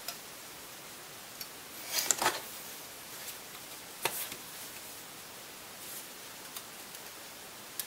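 Light clicks and short scraping rustles of small laptop hard-drive parts being handled, over a steady faint hiss. The busiest handling comes about two seconds in, with a sharp click near the middle and a few smaller ticks later.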